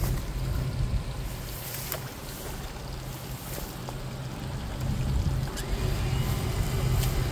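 A vehicle engine idling steadily with a low hum, under a low rumbling noise.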